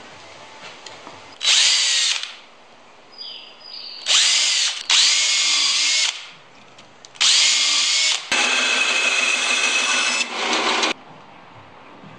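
Cordless DeWalt drill boring into a wooden block in three runs, each starting with a rising whine. The runs last about one, two and three and a half seconds, and the last is the longest.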